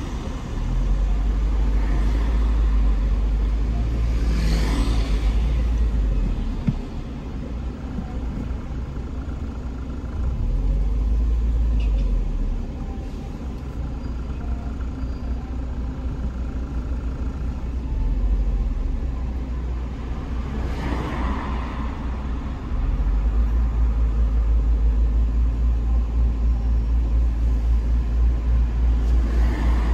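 Low rumble of a car moving in slow city traffic, swelling and dropping several times as it pulls forward and eases off. Oncoming cars swish past about four seconds in and again about twenty-one seconds in.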